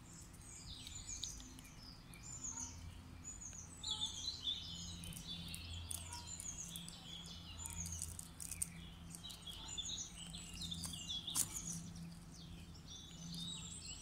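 Several songbirds chirping and singing, many short calls and warbles overlapping, over a low steady background hum.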